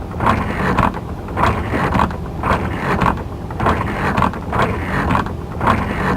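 Dubbed-in mechanical sound effect: a machine cranking or ratcheting about twice a second over a low rumble. It starts abruptly out of silence.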